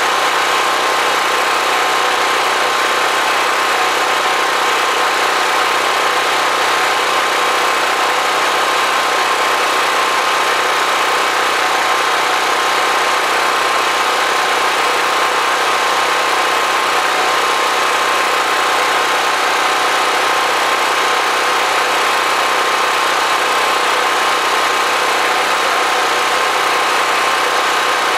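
Generator engine running with a loud, steady drone and a constant hum, unchanging in pitch and level.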